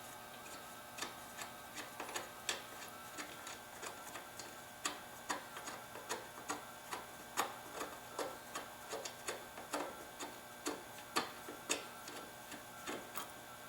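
A ratcheting hand wrench clicking faintly in short runs, about two to three clicks a second, as a bolt is backed out.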